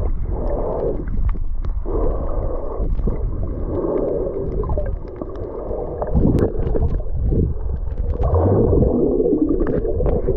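Muffled underwater sound of a camera submerged while snorkelling in the sea: gurgling, sloshing water with an occasional faint click, and nothing bright above a dull low rumble.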